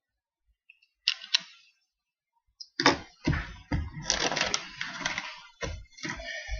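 Loose plastic Lego pieces clicking and clattering as they are rummaged through by hand in a tray: a short rattle about a second in, then continuous rummaging from about three seconds in.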